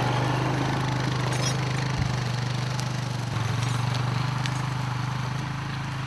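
ATV engine running steadily as it tows a log-skidding arch loaded with chained logs, with a single knock about two seconds in.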